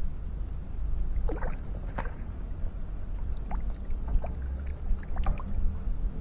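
Lake water lapping, with small splashes and drips scattered through, over a steady low rumble.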